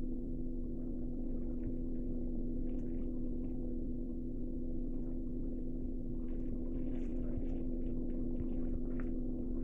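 Steady low electrical hum from an old home recording's soundtrack, with faint, indistinct sounds over it.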